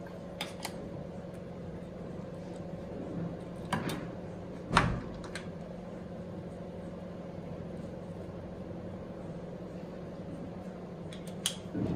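A few sharp clicks and knocks from a compression tester's hose and fitting being handled on an engine's cylinder head, the loudest one about five seconds in, over a steady low hum.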